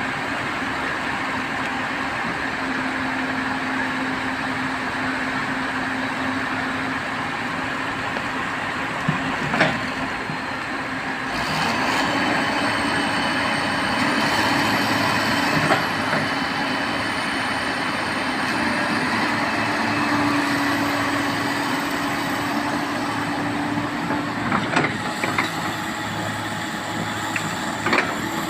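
Komatsu hydraulic excavator running steadily while working, its engine note rising and falling a little, with a few short sharp knocks.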